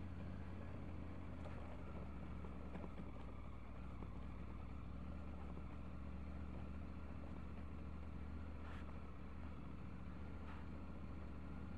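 Triumph Tiger 900's three-cylinder engine running at low, steady revs, a continuous even drone with no revving.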